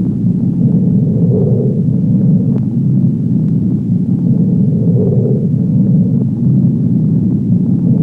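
A loud, steady low rumble that swells a little about every three and a half seconds, with a few faint clicks.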